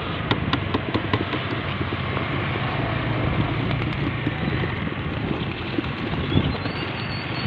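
Steady wind on the microphone over a low hum, with a few sharp clicks in the first second as a wooden crate of racing pigeons is opened for release.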